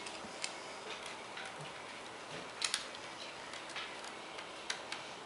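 A few light clicks and ticks, spaced a second or two apart, from small screws and a screwdriver working at the edge of a laptop LCD panel as its side mounting screws come out, over a steady faint hiss.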